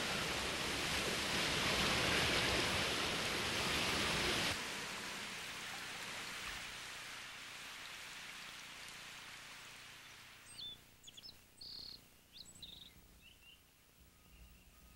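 Storm sound effect of steady rain and wind that drops suddenly about four and a half seconds in and then fades away. A few short bird chirps follow near the end, as morning comes.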